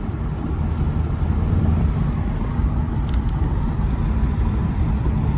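In-cabin sound of a 2018 Mercedes-AMG E43 being driven gently: a steady low rumble from its twin-turbo V6 and the road, with the engine still cold. A faint click about three seconds in.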